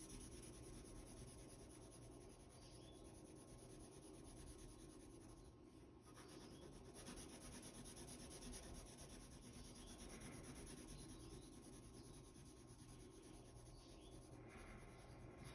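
Faint scratching of a Prismacolor Ebony graphite pencil shading back and forth on drawing paper.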